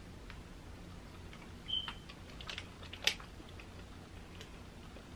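Faint scattered clicks and ticks from eating a soft chocolate-coated foam banana bar: small mouth sounds of biting and chewing and light handling of the wrapper, with one sharper click about three seconds in.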